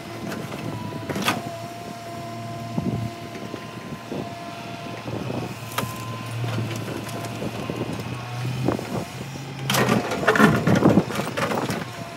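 Komatsu PC200 hydraulic excavator's diesel engine running with a steady hum as the machine digs and swings. Near the end, rock and soil rattle and scrape loudly against the bucket as it digs in.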